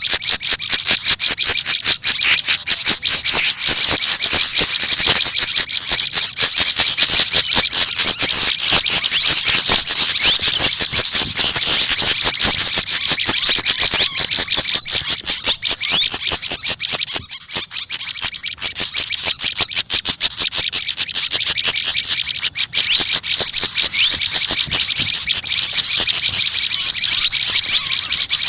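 Small songbirds giving fast, continuous chattering calls, high-pitched, with a brief lull a little past halfway.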